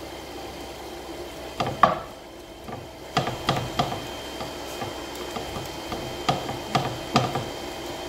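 Wooden spatula scraping and knocking against a nonstick frying pan as sliced peppers, onion and cabbage are stir-fried over high heat, with a low sizzle underneath. The knocks come irregularly in small clusters, the sharpest a little under two seconds in.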